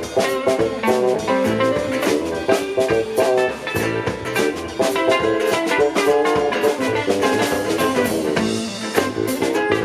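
A live band playing an instrumental passage with guitar over a steady drum kit beat, no vocals.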